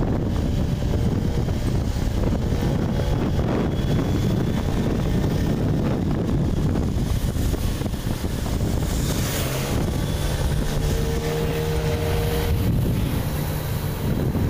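Wind buffeting the microphone on a moving motorcycle, with the engine's hum underneath; the engine tone comes through more clearly about ten seconds in.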